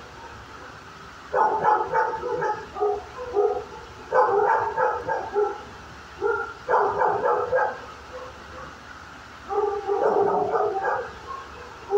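Dog barking in the echoing space of a kennel room, in about four bouts of quick barks roughly every two and a half seconds, with single barks between.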